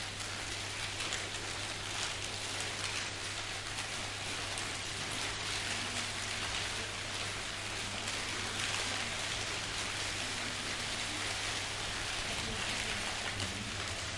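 Steady crackling hiss made by hand as a live sound effect for a fire burning.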